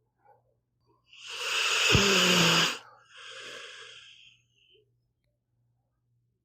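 A sleeping pit bull snoring: one loud snoring breath starting about a second in, then a quieter, shorter breath.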